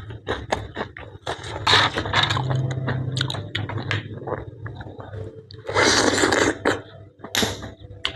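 Someone eating blanched blood cockles close to the microphone: shells clicking and scraping as they are opened, with chewing and a few short wet noisy bursts.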